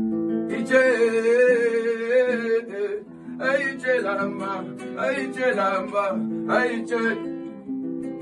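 Plucked guitar strings playing a line of held notes, with a wordless singing voice over them: one long phrase in the first three seconds, then several shorter phrases.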